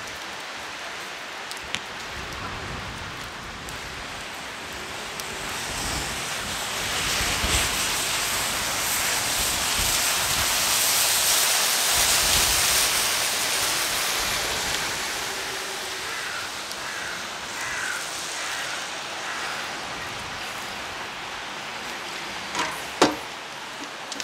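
Steady heavy rain hissing, with a louder swell of hiss in the middle that builds and fades over several seconds, and a sharp click near the end.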